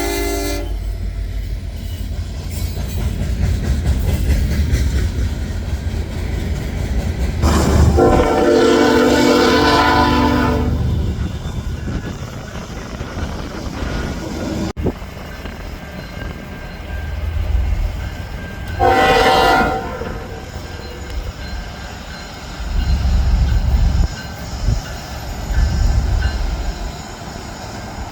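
Passing train's locomotive horn sounding a multi-tone chord: a long blast of about three seconds, then a short blast some ten seconds later. Under it runs the train's steady low rumble.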